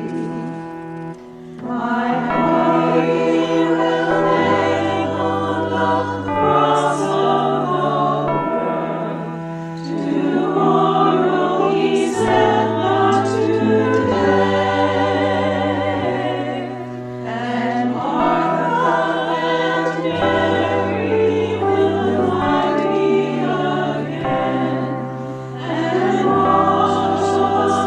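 A choir singing a hymn over an accompaniment that holds long, sustained bass notes changing every couple of seconds; the voices waver with vibrato.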